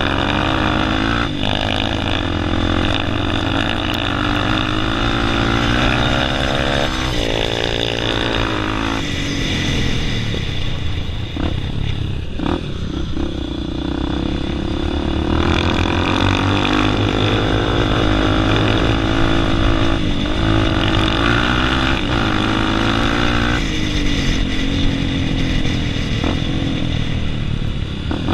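Dirt bike engines running hard, their pitch rising and falling several times as they accelerate and back off.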